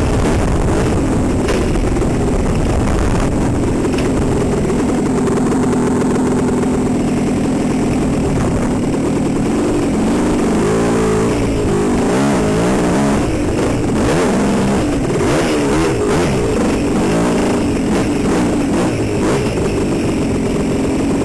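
Dirt bike engine heard close up from the rider's helmet camera. It runs steadily at first, then from about halfway through rises and falls repeatedly in pitch with the throttle.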